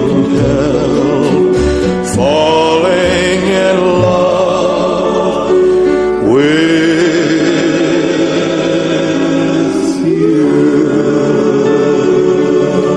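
A slow song with long sung notes held with vibrato, several voices in a choir-like blend, a new phrase starting about every four seconds.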